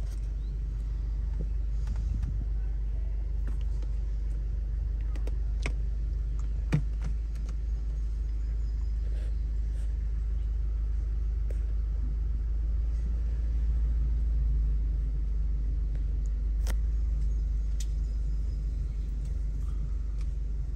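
Car engine idling, a steady low rumble heard from inside the cabin, with a few sharp clicks, the loudest about seven seconds in.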